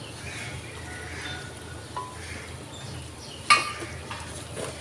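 A wooden spoon knocking against an earthenware cooking pot: one sharp clack about three and a half seconds in, with fainter clicks before and after, over a low steady hum.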